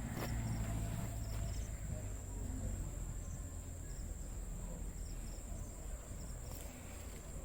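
Insects chirping: a steady, thin high-pitched drone with short faint chirps over it, above a low background rumble.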